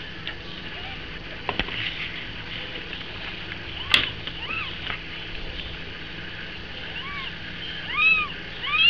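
Newborn kittens giving several short, high squeaky mews, each rising and falling in pitch, mostly in the second half and loudest near the end, over a steady hiss. A single sharp click comes about four seconds in.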